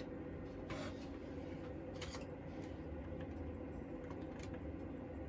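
Faint steady electrical hum with a few soft clicks scattered through it.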